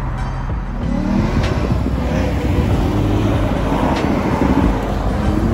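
Sports car engines accelerating along the road. The engine note climbs about a second in and again near the end.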